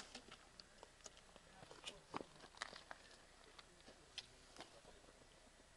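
Near silence with about a dozen faint, scattered clicks and crunches.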